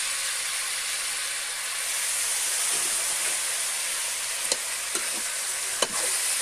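Chicken pieces and ginger-garlic paste sizzling steadily in hot oil in a karahi. From about four and a half seconds in, stirring begins, with a few sharp knocks against the pan.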